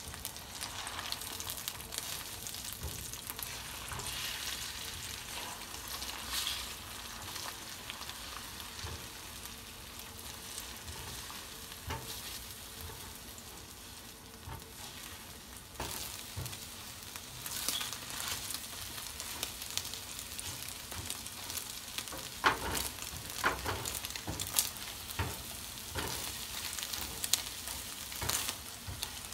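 Beaten eggs sizzling in a square frying pan on a gas stove while a silicone spatula stirs and scrapes them into scrambled curds. A steady sizzle runs under light spatula knocks and scrapes, which come more often in the second half.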